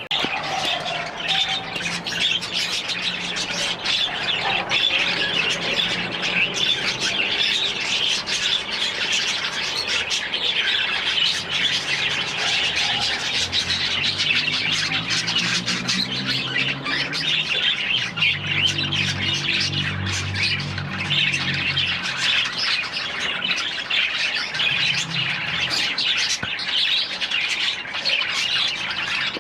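A flock of caged aviary birds chattering and squawking continuously, a dense mass of overlapping calls, with lower calls joining in the middle.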